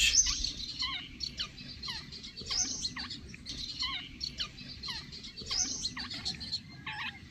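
Babblers calling: a run of short, sharply falling calls, about two a second.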